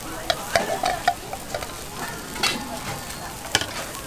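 Pork sizzling on a hot grill, a steady frying hiss, with metal utensils clicking against the cooking surface several times.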